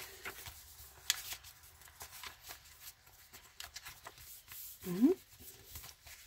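Paper pages of a handmade junk journal rustling and flicking as they are turned and handled, a scatter of light crisp paper sounds. About five seconds in, a short vocal sound rising in pitch is the loudest thing.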